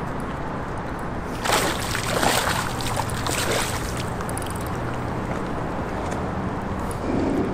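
A hooked zander splashing at the water's surface as it is brought in to the bank: a burst of splashes about a second and a half in, lasting about two seconds, over a steady low hum.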